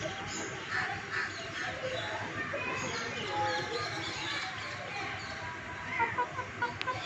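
Domestic chickens clucking and calling, with a quick run of short calls about six seconds in.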